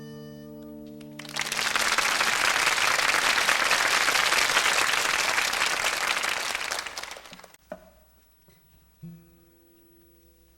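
Studio audience applauding for about six seconds after the last chord of a song dies away, then a click and a few soft guitar notes as the next song is readied. Heard as an FM radio broadcast recorded on cassette tape.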